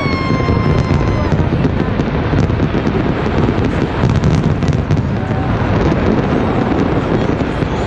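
Fireworks display in full barrage: continuous deep booming with dense crackling, busiest around the middle. A high whistle with a slightly falling pitch sounds over it for about the first second and a half.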